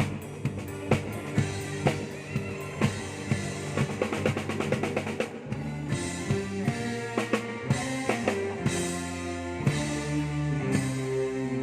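Drum kit played with the band during a sound check, kick, snare and rimshot hits over bass notes, with a fast, even drum roll about three and a half to five seconds in.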